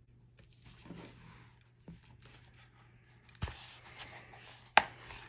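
Hands handling leather ring planners on a desk: soft rustling and scraping, with two sharp taps about three and a half seconds in and near the end.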